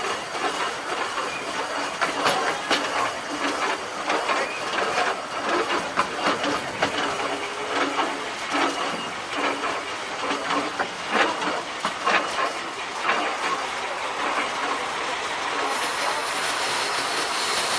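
15-inch gauge miniature railway carriage running along the track, its wheels clicking and clattering over the rails under a steady rushing hiss. The clicks thin out after about fourteen seconds while the hiss carries on.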